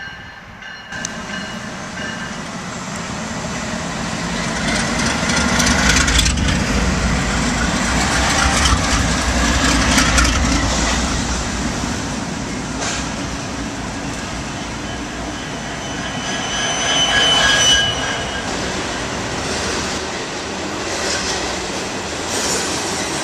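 Norfolk Southern diesel freight locomotives pass directly underneath, their engine rumble building and then running loud, followed by the freight cars rolling by with wheels clattering on the rails. A brief high wheel squeal comes about three-quarters of the way through.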